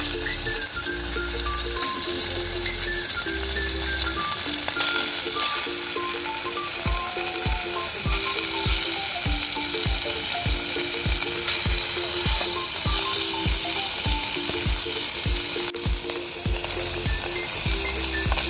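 Food sizzling and frying in a pan over a campfire, a steady hiss and crackle. Light background music with a melody and a regular beat plays underneath.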